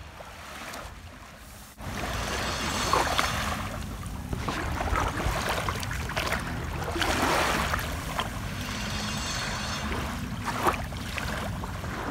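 Small waves washing at the edge of a sandy beach, with wind buffeting the microphone; the sound grows louder about two seconds in.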